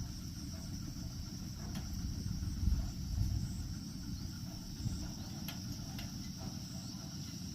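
Insects, crickets or similar, trilling steadily in a high, even band, over a low rumble, with a few faint clicks.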